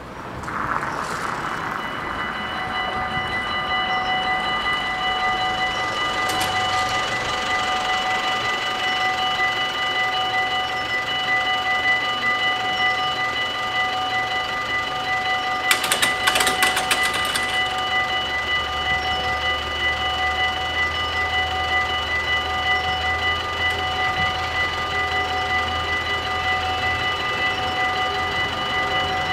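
Dutch level-crossing warning bells ringing without a break as the crossing closes and the barrier booms come down. A brief clatter comes about sixteen seconds in, and a low rumble joins from about eighteen seconds.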